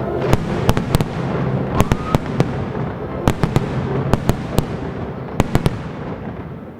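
Fireworks bursting overhead: a rapid, irregular series of sharp bangs over a dense hiss of exploding shells, dying away near the end.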